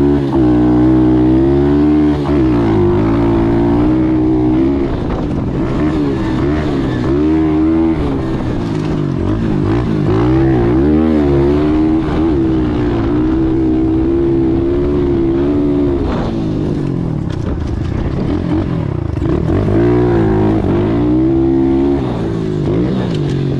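Apollo Z20 pit bike's single-cylinder four-stroke engine revving up and down again and again as it is ridden hard. It is running on a re-jetted replacement carburetor with a 27.5 pilot jet and picks up cleanly on hard throttle without bogging.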